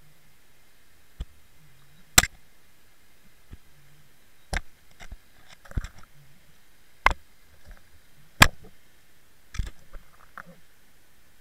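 Seven sharp knocks and clicks, most about a second and a quarter apart, heard from inside the housing of a Water Wolf underwater fishing camera towed on a line, over a faint steady hiss: the rig knocking against the camera as it is worked through the water.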